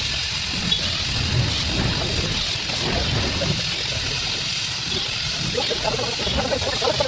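Gas welding torch hissing steadily.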